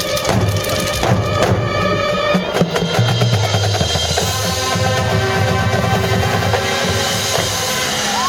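Marching band playing: brass holding sustained chords over the drum line, with several sharp hits together in the first couple of seconds and drums continuing underneath.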